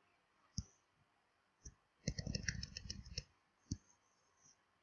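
Faint computer keyboard typing, a quick run of about a dozen keystrokes about two seconds in, with single mouse clicks before and after.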